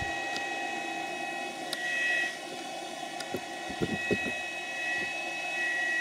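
Small 600 W square-wave (modified-sine) power inverter running, a steady fan-like drone with a constant high-pitched whine, and a few faint clicks about halfway through.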